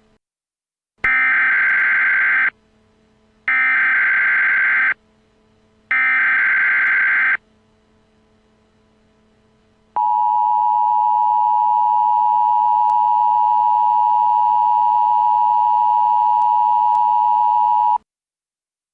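Emergency Alert System tones. First come three SAME header data bursts, buzzy digital tones about a second and a half each with about a second between them. Then comes the steady two-tone EAS attention signal, held for about eight seconds before it cuts off sharply.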